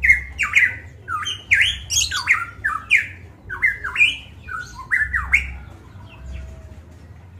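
A caged pitohui (cucak emas papua) singing a rapid run of loud, clear whistled notes, many sweeping sharply upward. The notes thin out and fade about two-thirds of the way through.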